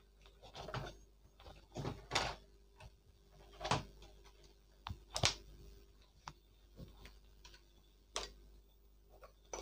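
Plastic body of a battery-powered remote-control toy car being handled and turned over, with a handful of separate knocks and scrapes as it is set down on the floor.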